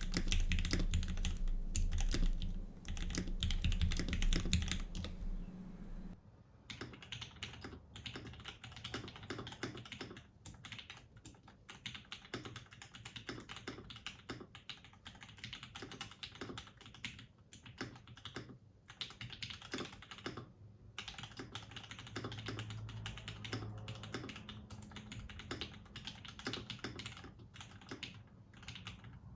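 Typing on a Laneware LW-75 custom mechanical keyboard with lubed and filmed Turquoise Tealio linear switches in an aluminium plate, with GMK Trackday clone keycaps: a run of clacky keystrokes. The strokes are louder for about the first six seconds, then quieter for the rest.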